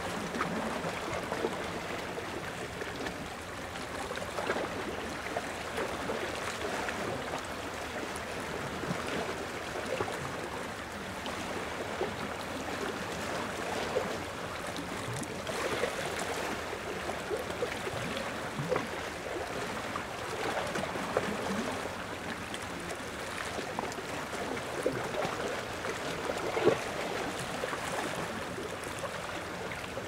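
Small ocean waves washing and lapping at the shoreline: a steady wash of water broken by many small, irregular splashes.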